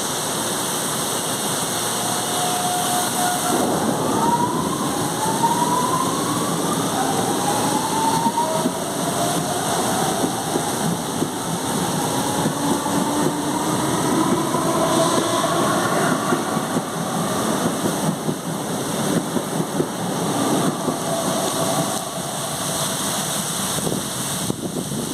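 CPTM Série 2070 electric multiple-unit train pulling away, its traction motors growling over the rail and running noise. A series of whines rise in pitch, one after another, as it picks up speed.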